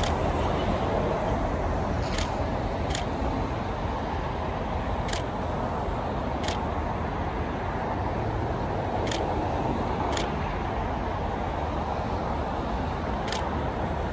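Steady outdoor roar of a busy airport heard from a distance, distant jet engines and traffic blending into one even rumble. Six short, sharp ticks are scattered through it.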